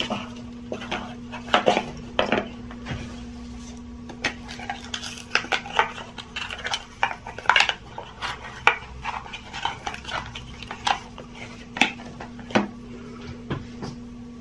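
Hands unboxing folding pocket knives: a cardboard knife box opened and its lid and insert handled, with a run of irregular clicks, taps, rustles and light knocks as the knife is lifted out and turned over.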